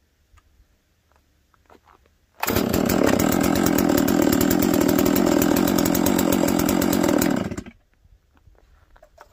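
Farmertec Holzfforma G660 two-stroke chainsaw restarting warm after its cold start. It fires up suddenly about two and a half seconds in, runs steadily for about five seconds, then is shut off and cuts out.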